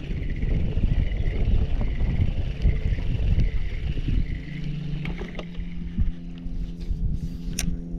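Fishing boat under way with wind buffeting the microphone and water rumbling against the hull. About halfway through, a steady motor hum comes in, and there are a couple of light ticks near the end.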